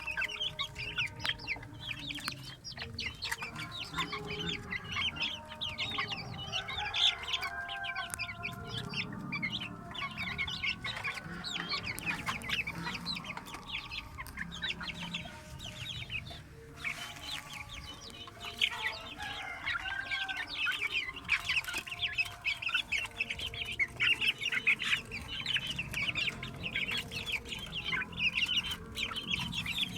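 A flock of chickens clucking and calling continuously, with many quick overlapping calls and a short lull about halfway through.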